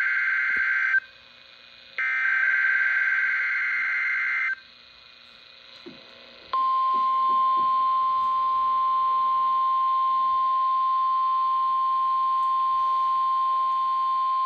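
NOAA Weather Radio SAME alert header being broadcast for a weekly test. One digital data burst ends about a second in, and another runs from about two seconds in for about two and a half seconds. About six and a half seconds in, the steady 1050 Hz warning alarm tone starts and holds.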